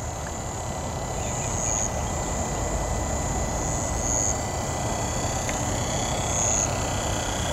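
Propeller and motor of a large electric RC aerobatic plane, an Addiction XL, as a low rushing noise that slowly grows louder while the plane comes in on its landing approach. A steady high insect chorus runs over it, swelling a little every couple of seconds.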